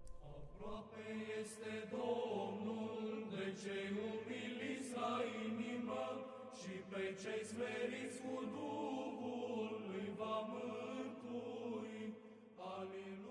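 Slow sung chant with long held notes, dropping away near the end.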